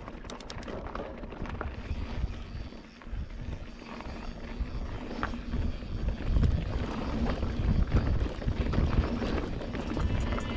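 Mountain bike rolling down a dirt and gravel trail: tyres crunching over the surface and the bike rattling and clicking over bumps, with wind rumbling on the microphone. It grows louder about halfway through as the ride speeds up.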